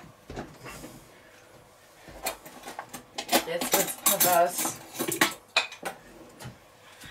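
Metal cutlery clinking against china dishes: a run of sharp clinks through the middle of the stretch.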